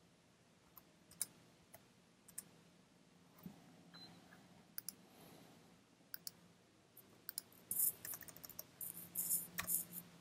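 Faint, scattered computer mouse clicks, then a quick run of keyboard keystrokes near the end.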